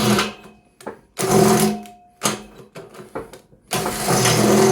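Electric drill running in short bursts of about a second, three times, cutting into the steel bumper.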